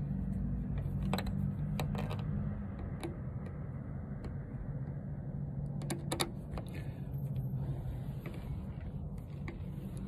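Scattered small clicks and ticks of a screwdriver bit working a small screw into the bottom of a Ring video doorbell, a few around the first two seconds and another cluster about six seconds in, over a steady low rumble of wind on the microphone.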